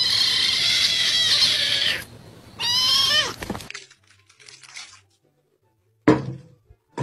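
A kitten giving a hoarse, cracking "broken" meow that lasts about two seconds, then a second, shorter meow that falls in pitch. A single short knock follows about six seconds in.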